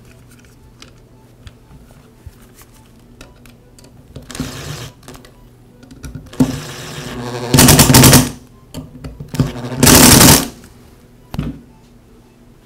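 Impact driver driving in the screws of a router's motor cover. It gives several short runs of rapid rattling hammering, the two loudest about eight and ten seconds in, after some light clicks as the plastic cover is handled.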